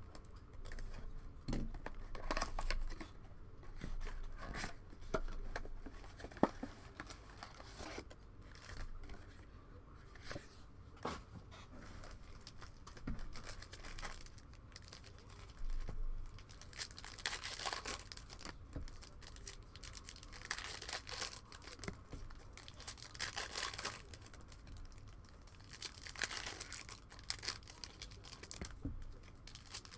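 Foil trading-card pack wrappers being torn open and crinkled by hand, with small clicks and the rustle of cards being handled. The tearing comes in repeated bursts, thickest in the second half.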